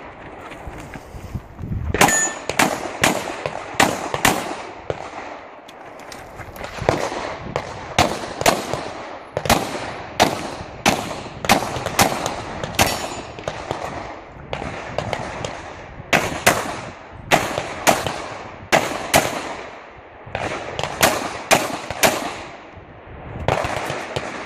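Glock 35 pistol (.40 S&W) firing a long string of shots through a practical-shooting stage, mostly in quick pairs with short pauses between. There is a brief metallic ring about two seconds in.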